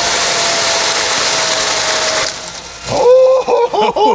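Kennametal 5720 3-inch shell mill on a 100 HP five-axis machining centre face-milling aluminum at 1000 inches per minute with through-spindle coolant: a loud, steady cutting noise with a faint high tone running through it, which breaks off about two seconds in. Men's excited shouts and exclamations follow.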